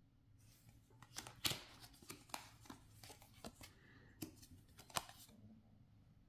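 Tarot cards being handled and moved about: a faint run of light clicks and slides, with sharper snaps about a second and a half in and again near the five-second mark.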